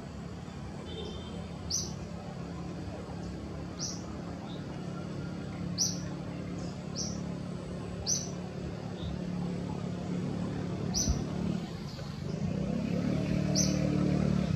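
A bird's short, high, sharp call repeated about every two seconds, over a steady low drone that grows louder in the last two seconds.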